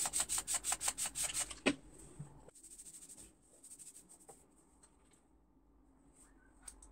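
Handheld trigger spray bottle squirted in quick succession, about six hissing sprays a second, stopping just under two seconds in. Then faint rustling of fingers rubbing through hair.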